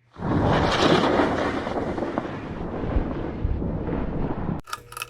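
Electric guitar through a heavily distorted amplifier: one chord struck hard, held for about four seconds, then cut off suddenly, followed by a couple of clicks and a steady amplifier mains hum.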